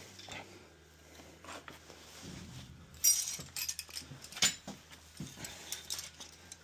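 Metal hand tools clinking and rattling as they are rummaged through in a tool bag, in irregular knocks with a couple of louder clanks about three and four and a half seconds in, over a faint steady low hum.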